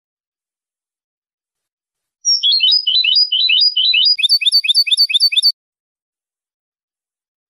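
European goldfinch (jilguero) singing one phrase of about three seconds, starting about two seconds in. A quick run of varied twittering notes turns into a fast, evenly repeated trill of about seven notes a second, then stops abruptly.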